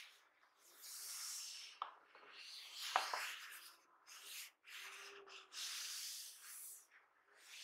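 Cloth-gloved hands rubbing and sliding over a cardboard retail box: a series of soft swishes, with a small tap about three seconds in.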